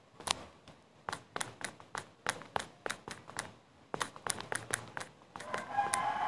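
Irregular light taps and clicks, a few per second, of fingers typing on a phone's touchscreen keyboard. Faint voices come in near the end.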